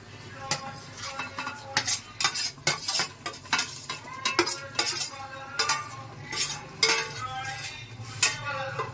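A metal spoon scraping and tapping cubes of raw paneer off a steel plate into an aluminium pot of gravy, with repeated sharp clinks and brief metallic ringing. A low sizzle sounds underneath.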